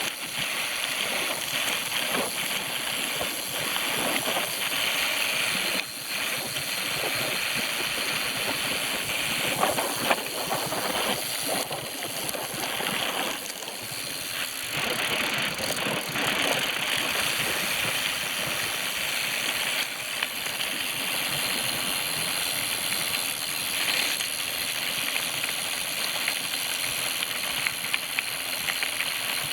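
Steady noise of a bicycle being ridden: wind and tyre noise with occasional rattling and clicks.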